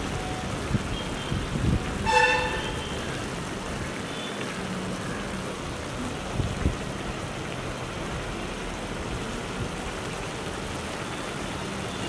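Large pan of tomato-and-onion sauce simmering with a steady hiss. About two seconds in, a short horn toot rings out, with a few dull thumps around it.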